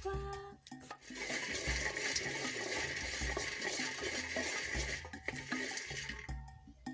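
Water pouring steadily for about five seconds, starting about a second in and stopping near the end, over background music with a steady beat.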